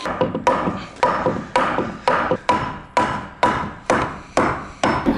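Hammer blows on a wooden 2x4 block set against the edge of a Warmboard subfloor panel, knocking the panel tight into place: about eleven even strikes, two a second, each ringing briefly.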